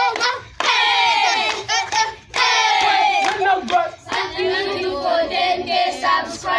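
Group of children shouting and chanting together in loud phrases, with short breaks between them and some hand claps.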